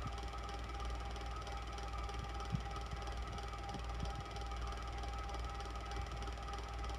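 Electric fan running steadily: an even whir over a low hum with a couple of steady tones, and a few faint ticks about two and a half and four seconds in.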